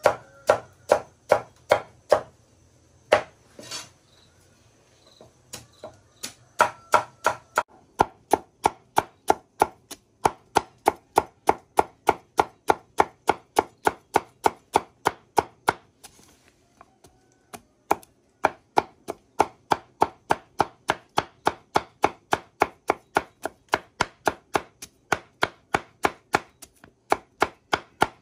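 Large cleaver chopping fresh cassava roots into thin chips, a run of quick sharp chops about three a second. The chopping pauses briefly about three seconds in and again about halfway through.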